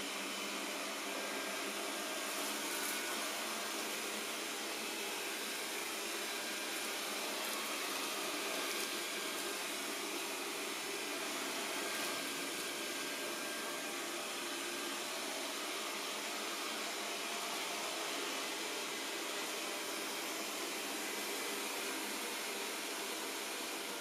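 First-generation Xiaomi Mi Robot Vacuum Cleaner running with a steady whir that stays even throughout.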